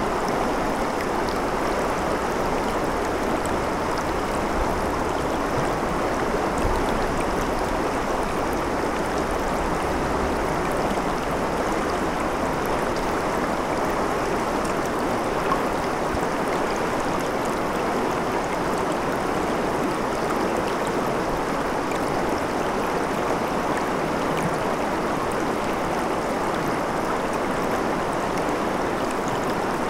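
Shallow, fast river rushing over rocks in riffles: a steady, even rush of water that does not change.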